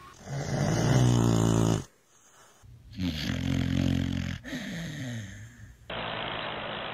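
Sleeping dogs snoring in a run of short clips. A beagle gives a long, loud, pitched snore in the first two seconds. After a short break, another dog snores twice. Near the end an English bulldog snores more steadily and noisily.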